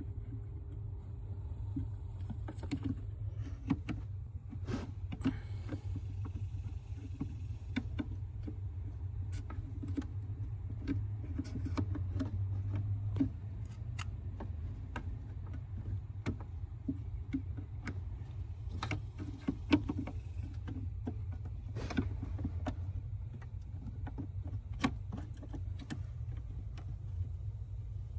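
Irregular small clicks and knocks, typical of hands and tools working on small parts, over a steady low hum.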